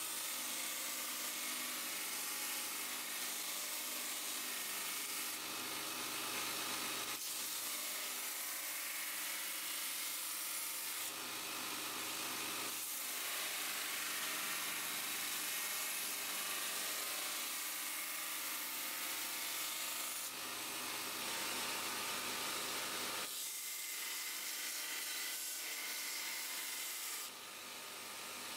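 Belt grinder running with a steel knife blade pressed against its abrasive belt: a steady gritty grinding hiss that changes abruptly several times as the blade is worked along the belt.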